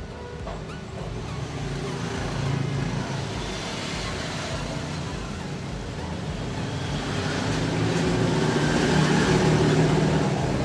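Road traffic passing, a steady rumble of motor vehicles that swells twice as vehicles go by.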